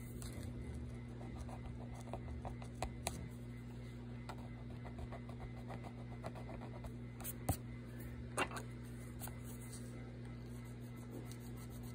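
Faint scratching and light tapping of a fine-tipped Posca paint marker on coloring-book paper, with a few sharper clicks past the middle, over a steady low hum.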